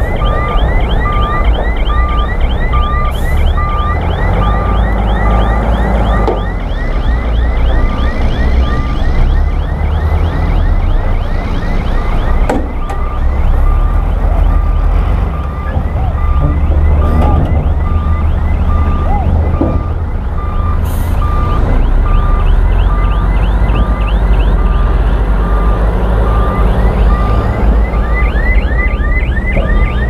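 Crawler bulldozer's diesel engine running under load as it pushes earth, a heavy low rumble. A reversing alarm beeps about twice a second through most of it, pausing for several seconds early on, and a fast run of high squeaks sounds above the engine.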